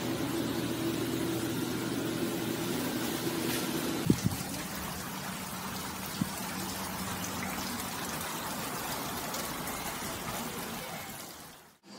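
Steady rush of water from an outdoor stone fountain, fading out near the end. A low hum and a sharp knock come in the first few seconds.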